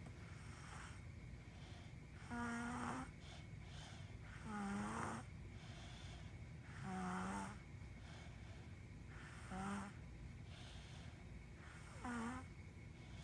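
Snoring in sleep: five short snores, each about half a second long and coming roughly every two and a half seconds, over a steady low hum.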